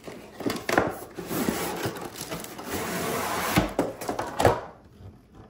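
A cardboard box being opened and handled, with plastic packaging rustling and crinkling as the contents are uncovered: a run of rustles and scrapes with a few sharp knocks, dying away about a second before the end.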